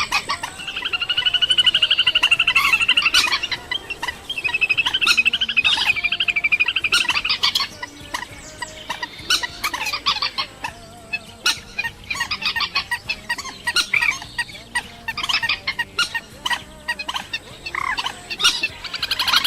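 A bird calling: two long, rapid buzzing trills, one about a second in and another around four seconds in, followed by a run of short clucking and clicking notes.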